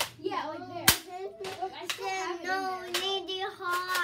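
Sharp clacks of a Nerf dart blaster firing about once a second, under a child's voice humming a wavering wordless tune.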